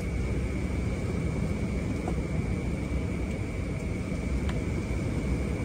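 Steady low roar of ocean surf, with a thin steady high whine running over it.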